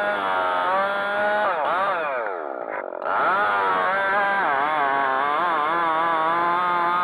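Husqvarna 375 XP two-stroke chainsaw at full throttle cutting through spruce, its pitch wavering as the chain bites. About two seconds in the revs fall away sharply for a moment, then pick back up to full speed.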